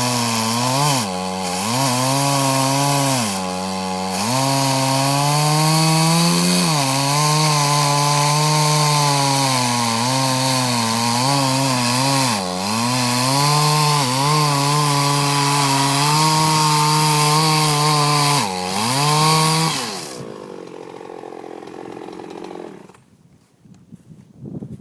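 Chainsaw cutting into a tree trunk at full throttle, its pitch sagging briefly several times as the chain bogs in the wood. About twenty seconds in it comes off the throttle, runs at a lower, quieter note for a few seconds, then goes quiet.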